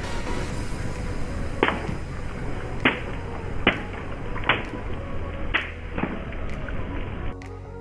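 Water balloons bursting one after another under a slowly rolling car tyre: about six sharp pops with splashes of water, spaced roughly a second apart over a steady low hiss.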